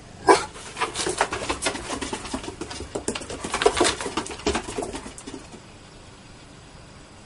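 Two dogs playing rough on a wooden deck: a loud bark just after the start, then about five seconds of growling and grunting mixed with claws and paws scrabbling on the boards, stopping about five and a half seconds in.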